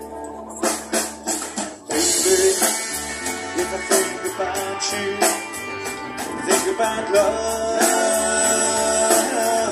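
Live rock band playing through a PA, with a drum kit, electric guitars and bass. A few separate drum hits come about half a second in, and then the full band comes in together at about two seconds.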